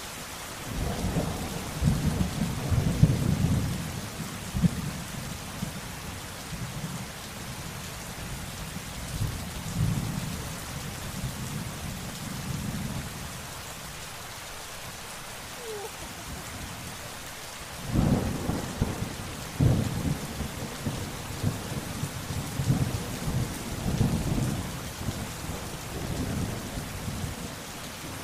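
Thunderstorm: steady rain with two long rolls of thunder. The first begins about a second in and rumbles on for roughly ten seconds; the second starts with a sudden sharp clap about eighteen seconds in and rumbles for several more seconds.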